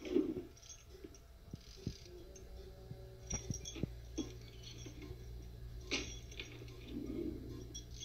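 Metal chain links clinking and jangling, with scattered sharp clicks and knocks, as a man in a chained restraint harness moves and handles a metal-framed folding table. A dull thump comes just after the start, and a steady low hum runs underneath.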